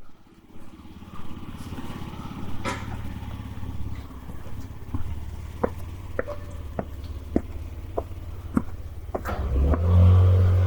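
A motor vehicle engine running with a steady low hum that swells louder about ten seconds in, with a run of evenly spaced footsteps, roughly one every half second, in the middle.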